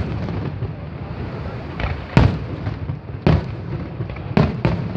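Fireworks exploding: sharp bangs about two seconds in, another about a second later, and a quick pair near the end, over a continuous din of the display.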